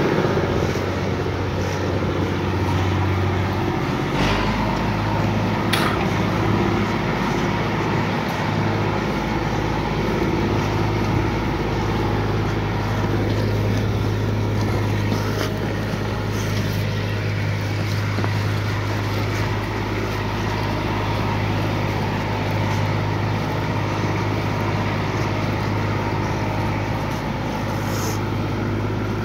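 IMT 539 tractor's three-cylinder diesel engine running steadily as it pulls a trailer loaded with logs, with a few brief knocks.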